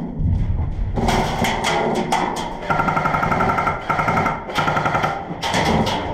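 Airsoft rifles firing rapid full-auto bursts, with a steady run of sharp clicks and three fast bursts in the middle, each about half a second to a second long.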